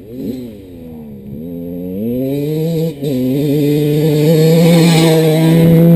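Dirt bike engine accelerating hard toward the microphone, revving up with a brief dip about three seconds in, like a gear change, then held at high revs and growing steadily louder as it closes in on its full-throttle run-up to skim across a pond.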